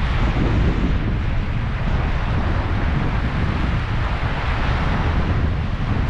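Sea surf washing onto a sand and pebble shore, a steady hiss that swells twice, over a continuous low rumble of wind buffeting the microphone.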